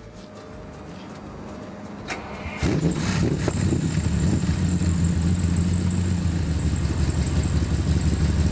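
A car engine starts about two and a half seconds in, then runs steadily with a faint high whine above it.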